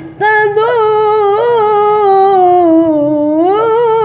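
A boy's melodic Qur'an recitation (tilawah): after a quick breath, a single long, drawn-out vowel held on one breath, with small ornamental turns in pitch, sinking lower about three seconds in and climbing back up near the end.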